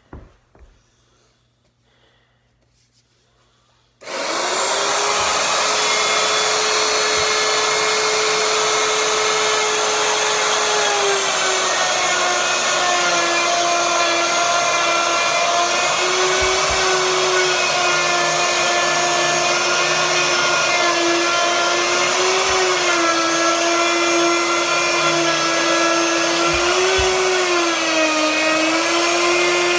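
Corded compact router switched on about four seconds in and running at full speed with a loud, steady whine; its pitch drops and recovers several times as it is pushed into the wood. A few faint knocks come before it starts.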